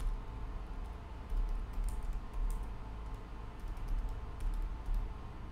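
Computer keyboard being typed on: a run of irregular, quick keystrokes as a short sentence is typed.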